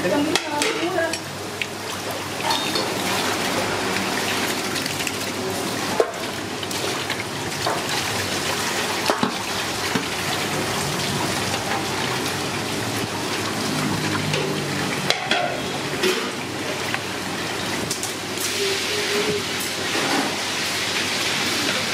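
Water sloshing and splashing in an aluminium basin as raw trumpet conch meat is scrubbed by hand with salt, with a few sharp clinks of a metal spoon on the basin in the first second. Toward the end a tap runs into the basin, bringing a brighter hiss.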